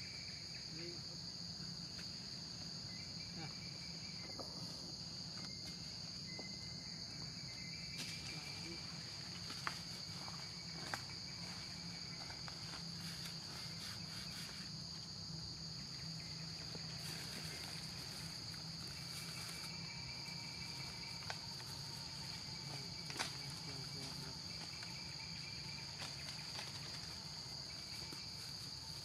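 Steady high-pitched drone of insects, with a low steady hum underneath and a few faint clicks.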